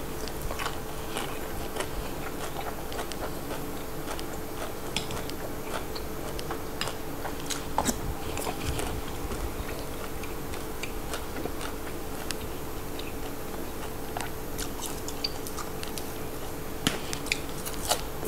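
A person chewing and biting mouthfuls of fresh vegetables and sticky rice close to the microphone, with scattered small crunches and mouth clicks over a faint steady hum.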